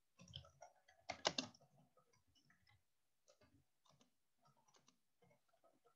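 Faint typing on a computer keyboard: a string of quick, irregular keystrokes, a little louder about a second in.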